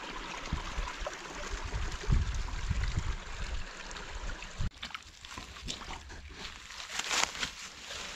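Water running through a break in a beaver dam, a steady trickling rush, with some low thuds in the first half. About four and a half seconds in it cuts to a quieter stretch, with a few brief scrapes near the end.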